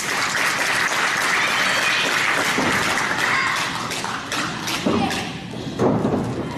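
Wrestling crowd clapping steadily, with a couple of short voice-like sounds near the end.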